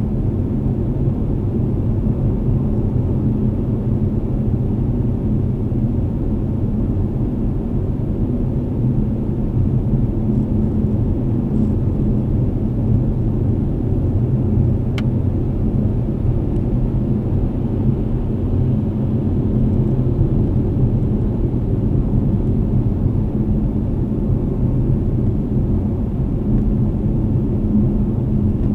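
Steady in-cabin driving noise of a vehicle cruising on a wet highway: a low rumble of tyres and engine with a constant hum. There is a single brief tick about halfway through.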